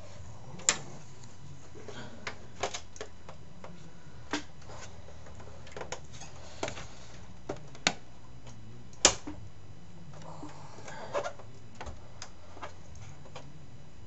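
Scattered light clicks and knocks of a motherboard and its cables being handled and seated in a metal computer case. They come at irregular intervals, and the sharpest knock falls about nine seconds in.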